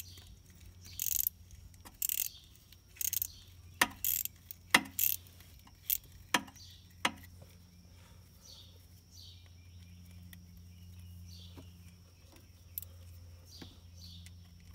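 Irregular sharp metal clicks and taps over the first half, from a homemade notched deep socket on an extension being turned by hand to back a broken tap out of a Chevy 454 cylinder head. Faint repeated chirps follow in the second half, over a low steady hum.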